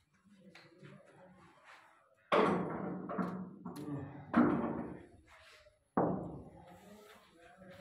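Three loud knocks, about two seconds apart, each dying away over roughly a second, with fainter knocking before them.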